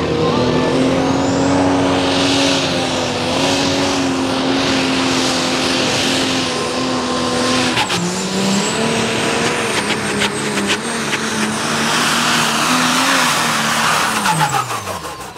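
Turbocharged diesel engine of a Pro Stock pulling tractor running flat out under load on a pull, with a high, steady turbo whistle over the engine note. About eight seconds in the engine note drops abruptly and then climbs again. Near the end the revs and the whistle fall away.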